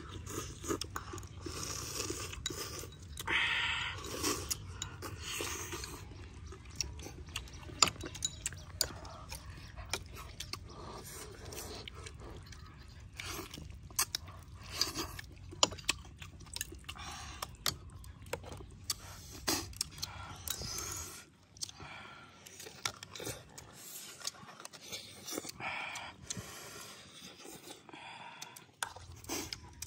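Close-miked eating sounds: noodles and chicken soup slurped from bowls, chewing, and chopsticks clicking against porcelain bowls in many short ticks.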